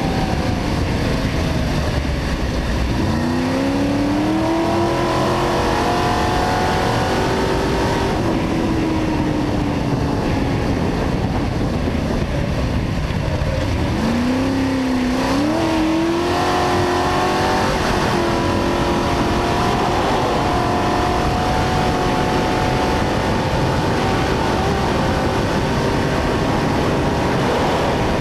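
Trophy truck engine heard from on board, pulling hard and easing off: the engine note climbs steeply about three seconds in and again about fifteen seconds in, dropping back between pulls.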